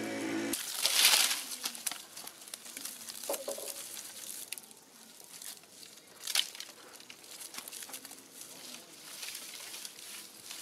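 Dry stalks and twigs rustling, crackling and snapping as they are gathered by hand and dragged over bare soil, with a loud rustle about a second in and a sharp snap near the middle. A steady hum cuts off just after the start.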